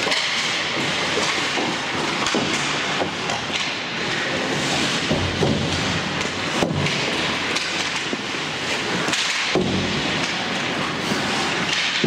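Ice hockey play on the rink: skates scraping the ice and sticks clacking on the puck and ice, with scattered sharp knocks and a few heavier thuds.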